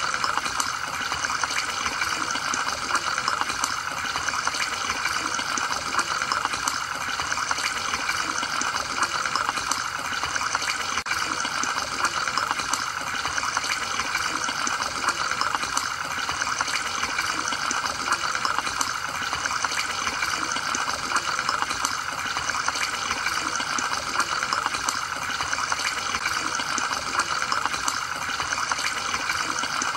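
Aquarium sponge filter bubbling steadily, with air bubbles rising up its lift tube and breaking at the water surface in a constant fizzy, crackling trickle.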